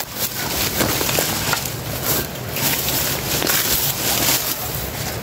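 A person pushing fast through dense forest undergrowth: leaves, ferns and twigs brushing and scraping against the body and the camera in an uneven run of rustles and crackles.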